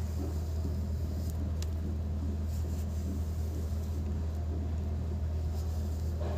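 Steady low background rumble at an even level, with a few faint light clicks over it.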